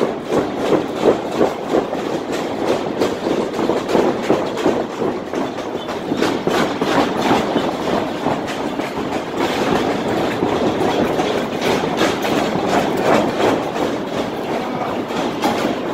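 Wrestling ring deck rumbling under several trainees' feet as they move around the ring, a continuous run of quick thuds and knocks.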